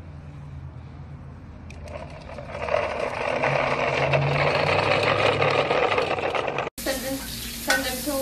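Toy dump truck's plastic wheels rolling over asphalt, a rough rumble that grows louder about three seconds in as it comes closer, over a low steady hum. It cuts off suddenly near the end.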